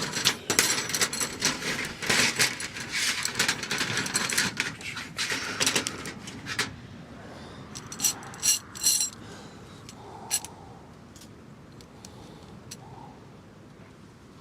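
Small metal parts clinking and clattering as they are handled, a dense run of clicks for about six seconds, then a few separate clicks.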